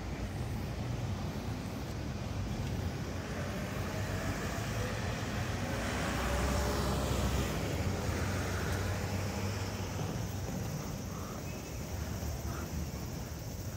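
Steady city traffic noise. A vehicle passing grows louder about six seconds in, with a low rumble, and fades over the next couple of seconds.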